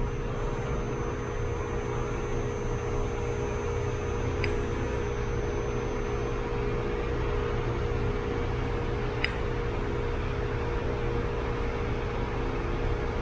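Steady machine hum with an even hiss, like a fan or motor running, with two faint light clicks about four and nine seconds in.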